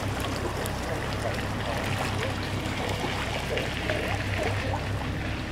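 Narrowboat engine running at a steady low hum, with water noise and faint distant voices over it.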